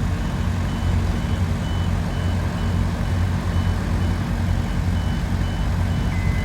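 Heavy diesel construction machinery running with a steady low rumble while a reversing alarm beeps about twice a second. Near the end a steady high-pitched tone joins in.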